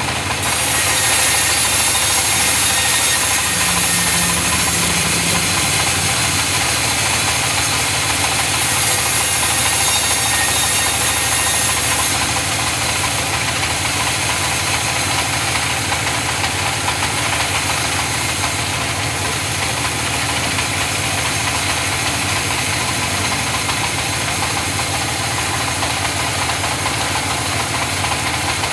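Engine-driven sawmill saw running steadily while sawing mahogany, with a brighter high hiss in roughly the first twelve seconds.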